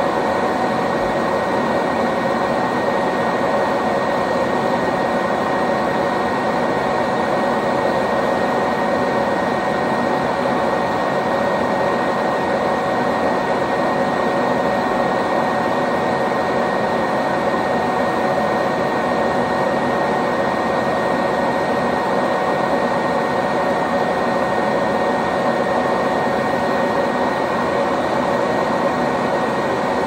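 Eureka ESP self-propelled upright vacuum cleaner running steadily while standing still: an even, unbroken noise of motor and airflow with a faint steady high whine through it.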